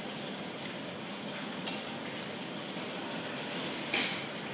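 Two sharp knocks, the second louder, over a steady background hiss.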